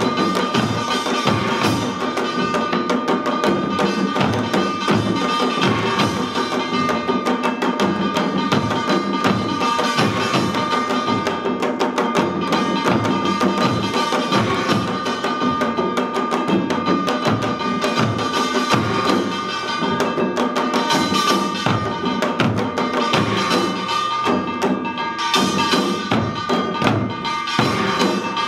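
Samul nori ensemble playing: janggu hourglass drums and buk barrel drums beating a fast, dense rhythm over the steady metallic ringing of kkwaenggwari small gongs.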